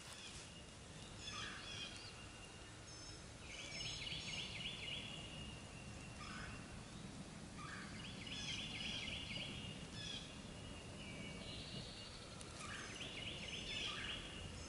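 Faint birdsong: a short, rapid trill repeated three times, about every four to five seconds, with scattered brief chirps between.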